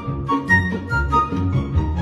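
Background music: a tune with a quick, steady beat.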